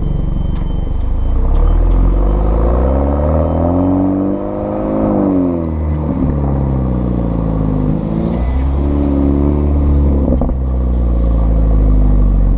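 Exhaust of a 2013 BMW F30 328i's turbocharged 2.0-litre four-cylinder through an M Performance exhaust, heard right at the tailpipes while driving. The note climbs in pitch under acceleration and drops back several times, about five, eight and ten and a half seconds in.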